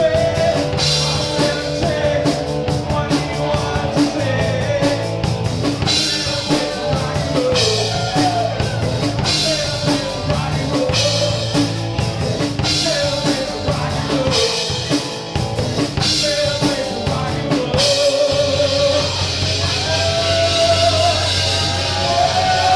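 Live rock band playing loudly: drum kit, electric guitar and bass with a singing voice. About eighteen seconds in, the beat gives way to a steady cymbal wash under long held notes.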